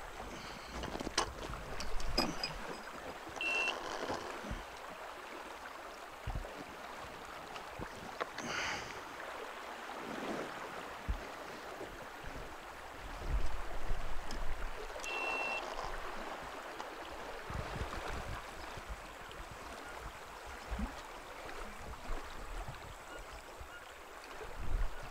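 River water flowing past a rock shelf: a steady rushing noise, with a few brief clicks and two short high chirps.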